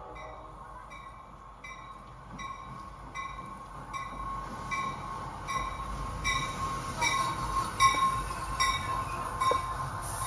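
NJ Transit commuter train, cab car leading, running into the station along the platform. Its rumble grows louder from about four seconds in, with a few sharp wheel knocks. Through it all run a steady high squeal and a bell dinging about twice a second.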